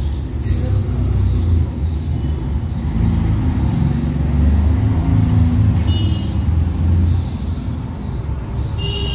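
Low engine rumble of a passing road vehicle, swelling to its loudest in the middle and easing off toward the end.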